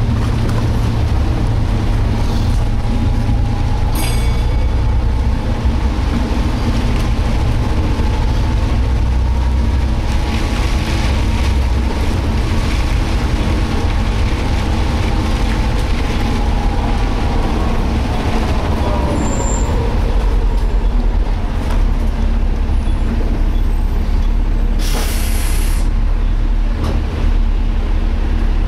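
Inside a moving Volvo B7TL double-decker bus: steady driveline rumble with a whine from the differential, the noise the uploader calls strange, which falls in pitch about two-thirds of the way through as the bus slows. Near the end a short burst of air hiss, typical of the air brakes.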